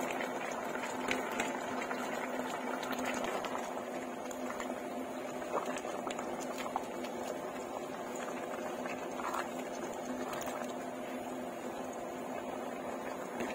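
Pan of chop suey vegetables (cauliflower, carrots, celery, cabbage, baby corn) bubbling in broth on the stove, a steady bubbling with a few faint small ticks.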